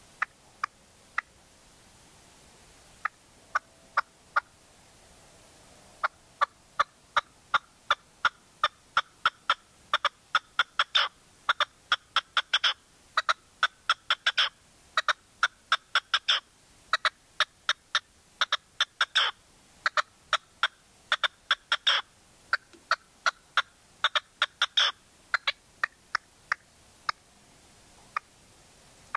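Caged decoy red-legged partridge calling: a long series of short, sharp notes. A few come scattered at first, then a steady run of about two or three a second that thins out near the end.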